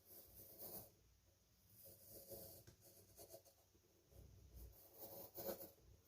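Faint scratching of a pencil tracing around fingers on thin cardboard, in short, irregular strokes.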